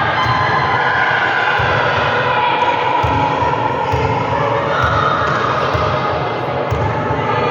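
Steady hubbub of many voices in a gym over a constant low rumble, with a few sharp thuds of a volleyball being hit.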